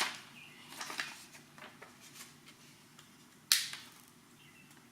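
Hand spray bottle squirting in short spritzes, the strongest about three and a half seconds in, with light clicks and rustles of the vinyl overlay being handled in between.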